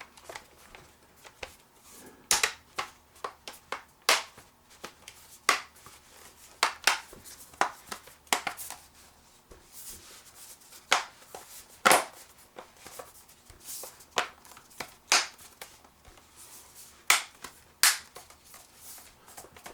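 Plastic snap clips of a Dell Inspiron 15 5000 (5591) laptop's base cover clicking into place as the cover is pressed back onto the chassis: a long, irregular series of sharp clicks with quieter handling between.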